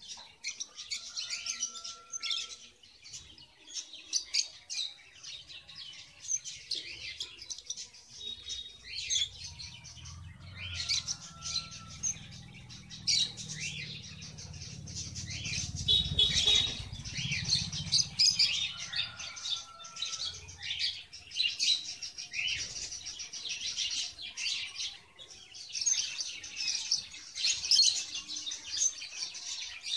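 Caged red avadavats (strawberry finches) chirping: a continuous stream of quick, high-pitched chirps and twitters, with a low rumble for about ten seconds in the middle.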